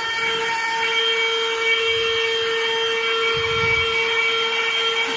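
Portable handheld vacuum cleaner running steadily with a constant high motor whine while cleaning a car's floor carpet.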